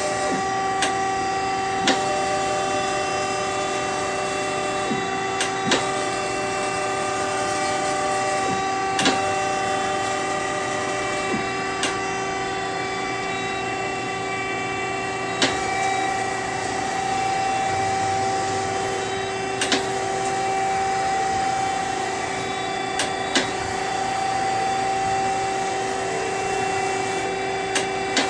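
Okuma MF-46VB vertical machining center running, its spindle whining at speed with a steady mix of several tones. Sharp clicks come through every few seconds at irregular intervals.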